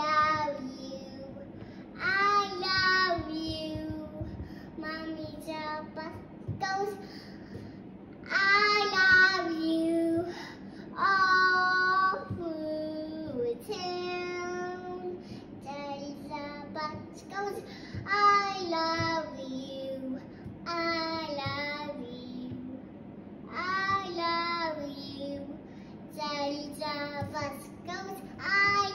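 A young girl singing, in short phrases of held, sliding notes with brief breaks between them.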